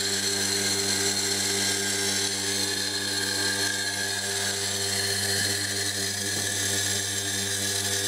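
Washing machine motor spinning at high speed on a variable frequency drive set to 200 Hz: a steady hum with a high whine above it.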